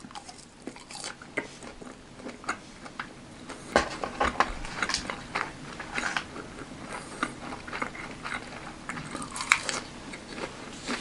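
A person biting into and chewing crispy fried chicken (karaage) close to the microphone: wet chewing with scattered crunches and a few sharper clicks, two of them standing out about four and nine and a half seconds in.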